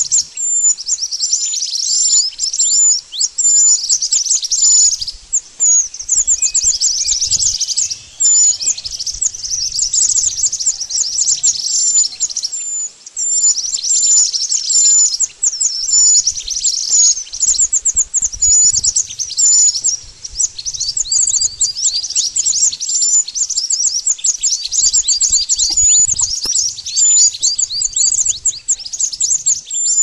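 Recorded bird calls played loud as a trapping lure: rapid, high chirps in near-continuous runs, broken by short pauses every few seconds.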